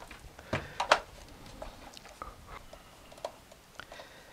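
Hands working on a plastic battery charger case with a meter module fitted into it: a few sharp plastic clicks and taps, the two loudest about half a second and one second in, then lighter scattered ticks.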